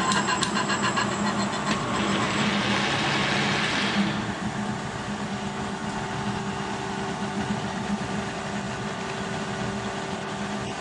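Kearney & Trecker horizontal milling machine running with its arbor cutter milling a spline groove in a Delrin shaft. A louder rush of cutting noise for the first few seconds settles into a steady machine hum.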